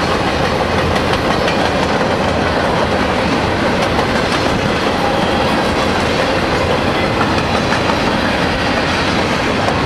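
Empty bulkhead flatcars and centerbeam cars of a freight train rolling past on the track, a loud steady rolling rattle of wheels on rail.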